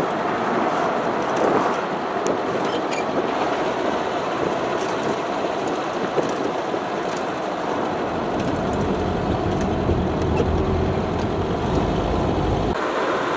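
Steady driving noise from a 1971 Volkswagen dune buggy under way, with engine and wind noise on the open car. The low rumble grows stronger over the second half, then drops off abruptly shortly before the end.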